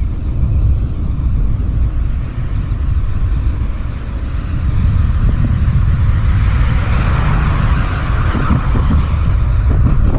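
Road vehicle noise: a steady low rumble, with a hiss that swells about six seconds in and dies away near the end, as of a vehicle passing.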